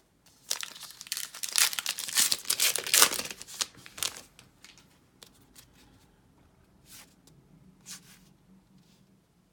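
Baseball card pack wrapper being torn open and crinkled, loud for about three and a half seconds, then a few faint rustles as the cards are handled.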